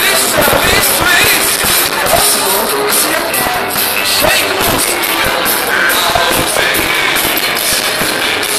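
Loud live rock music with singing, recorded through a mobile phone microphone that makes it sound harsh and muddy.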